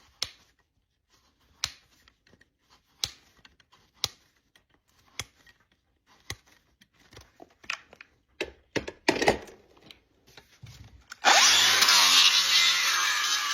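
Sharp clicks, about one a second and busier toward the end, then a handheld power tool starts abruptly about eleven seconds in and runs steadily and loudly, as used in trimming a draft horse's hoof.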